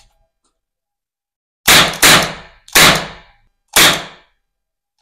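Miniature metal toy revolver firing plastic ring caps: four sharp cap bangs, the first two in quick succession about a second and a half in, then two more about a second apart, each fading quickly.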